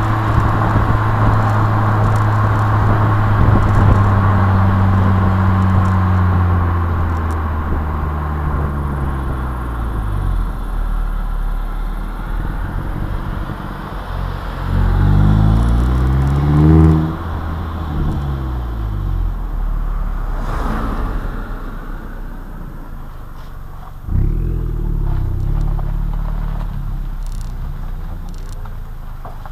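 Opel Astra J GTC 1.4 turbo engine heard from the rear through a tuned exhaust (76 mm downpipe, 200-cell sport catalytic converter, 70 mm sport exhaust), with road and wind noise. Its note holds steady, then falls slowly as the car slows. About halfway through, a short hard acceleration rises quickly in pitch and cuts off sharply. Near the end another pull starts suddenly and fades.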